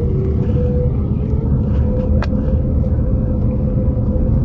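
Airbus A350-900's Rolls-Royce Trent XWB engines heard from inside the cabin as the airliner taxis, a steady low rumble with a constant engine hum. A single sharp click comes a little past the middle.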